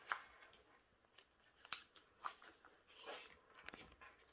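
A sheet of paper being folded and creased flat by hand: a handful of short, faint rustles and crinkles as its sides are folded in to the crease line.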